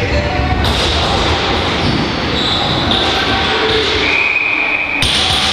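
Box lacrosse play on an arena floor: a hard rubber ball bouncing and thudding, sticks and running feet, with players' voices, in the echo of a large hall.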